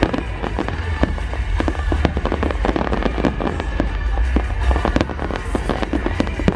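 Firework display going off: a dense, continuous run of bangs and crackles from many shells bursting at once.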